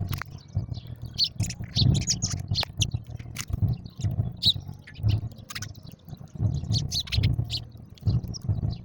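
A group of house sparrows chirping: many short, quick chirps overlapping one another, with sharp clicks and low dull thumps in between.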